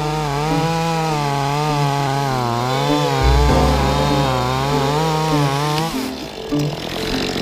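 Chainsaw cutting, its engine pitch wavering up and down as it works under load, then stopping about six seconds in.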